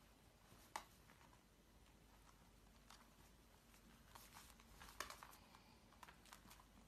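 Near silence with faint scattered taps and scuffs of husky puppies moving and pawing on a wooden floor, two sharper clicks about a second in and about five seconds in.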